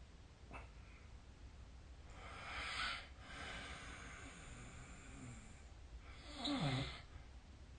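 A sleeping person snoring: two noisy breaths, a breathy one about two seconds in and a louder snore about six seconds in whose buzz falls in pitch.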